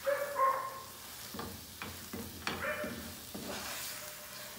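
Plastic spatula stirring and scraping thick carrot halwa around a nonstick frying pan, with a soft sizzle of ghee underneath. Each stroke scrapes irregularly. The halwa is cooked down and ready.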